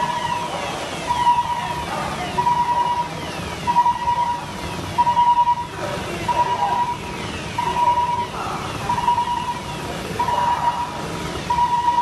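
Emergency vehicle siren sounding with a series of rapid falling sweeps, with a steady on-off beep about every 1.3 seconds over background street noise.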